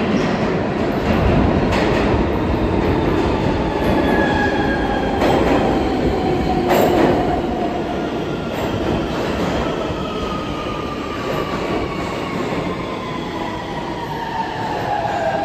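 An R160 subway train pulling into the station and slowing, its propulsion whine falling steadily in pitch as it brakes, over the rumble of the wheels on the rails with a few sharp clacks over rail joints.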